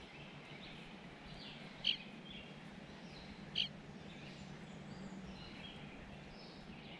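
Wild birds calling in woodland: two short, sharp chip notes about a second and a half apart, over fainter chirps and brief whistles.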